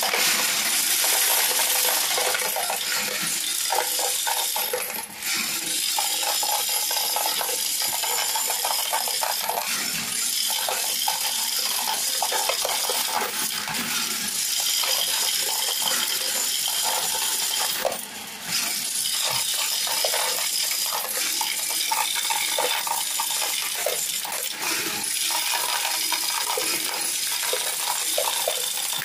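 Electric coin sorter running, coins from its hopper clattering and jingling in a dense, continuous stream as they drop into the sorting bins around its base, with two brief lulls.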